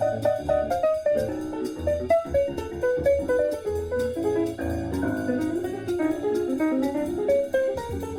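Instrumental jazz-style music with a steady beat: quick runs of pitched notes, likely piano or guitar, over drums.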